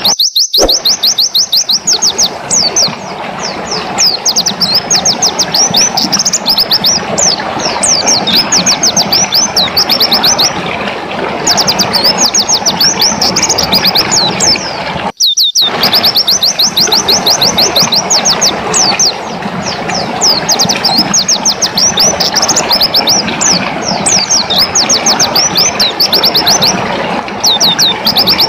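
Pleci dakun white-eye singing a fast, continuous 'ngelas' song: long runs of quick, high, sharply falling notes with only short pauses, over a steady rushing noise. The sound cuts out briefly about halfway through, then the song resumes.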